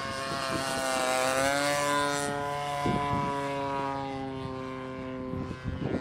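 Engine and propeller of a Seagull Models Lazer 200 RC aerobatic plane droning high overhead; the note climbs about a second in, then slowly sinks and holds steady.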